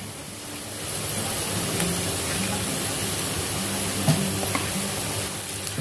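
Chopped onion frying in oil in a stainless steel kadhai, a steady sizzle that grows a little about a second in, as a ground masala paste is added and worked in with a wooden spatula.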